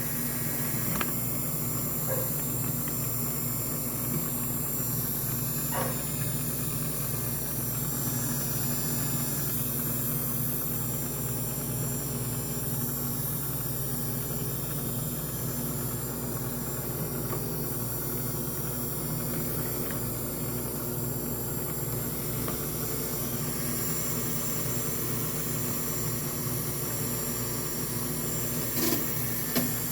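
Mini washing machine's electric motor running with a steady hum, with a few faint clicks.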